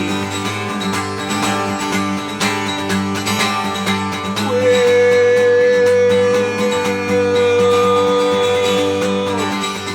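Instrumental break in a country song, with acoustic guitar. A long held note sounds from about halfway in until near the end.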